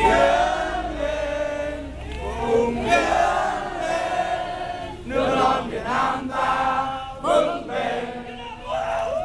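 A crowd chanting together in unison, in repeated phrases a second or two long with short breaks between them.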